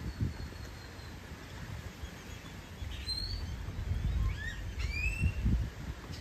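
Birds giving several short chirps and whistles that glide up and down, in a cluster from about three seconds in. Underneath is a low, uneven outdoor rumble.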